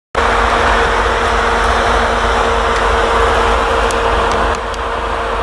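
Diesel locomotives, a GE B40-8W and a small maintenance switcher, running their engines as they move slowly, a steady drone with a steady hum. The sound eases slightly about four and a half seconds in.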